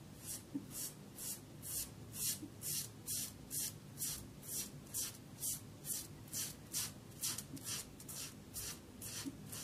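Rockwell 6C safety razor scraping three days of stubble off a lathered scalp in short, quick strokes, about two a second.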